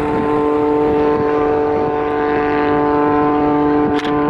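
Engine and propeller of the Oracle Challenger III aerobatic biplane flying overhead: a loud, steady drone holding one pitch, with a brief dip about four seconds in.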